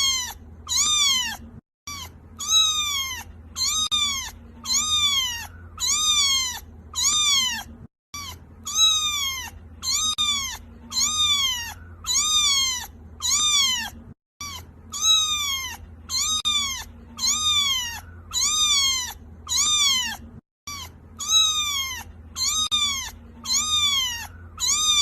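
A kitten crying with short, high-pitched meows, one about every 0.7 seconds, each rising then falling in pitch. The calls are identical and break off briefly about every six seconds: a single call recording looped.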